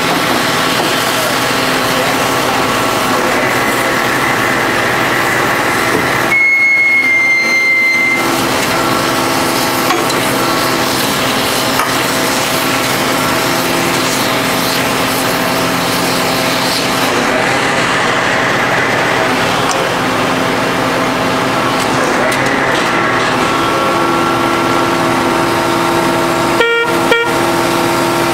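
Hydraulic power pack for an H-beam pile extractor running steadily, an engine hum with several steady tones. About six seconds in, a loud high steady tone sounds for about two seconds. Near the end there are two short sharp sounds about half a second apart.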